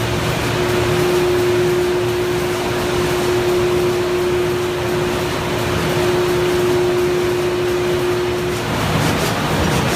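Martin 1636 corrugated box-making machine running at production speed: a loud, steady mechanical hum with a constant mid-pitched tone on top, as board sheets feed through. Near the end, light rapid ticking joins in.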